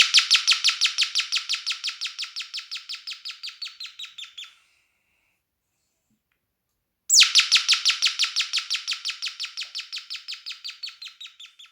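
Electronic bird-chirp doorbell circuit built on two NE555 timer chips: two rings of rapid chirps, about seven a second. Each ring starts loud and fades out over about four and a half seconds as its pitch drops; the second starts about seven seconds in.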